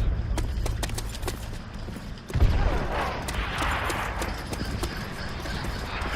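Dubbed-in war sound effects: scattered gunshots over a low rumble, with a sudden heavy boom about two and a half seconds in.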